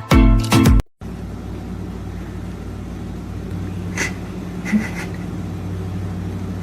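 Music cuts off, then a steady low drone like a vehicle's engine heard from inside, with a few faint short high-pitched sounds around the middle.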